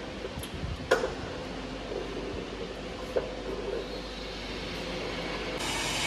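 Workshop background noise with a couple of light clicks or knocks, about a second in and again about three seconds in; a louder hiss comes in near the end.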